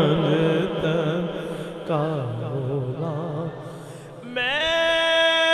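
A man's devotional singing voice, amplified through a microphone, drawing out long notes with a wide, wavering vibrato that fade gradually. About four seconds in, a different, perfectly steady sustained note swells in and holds.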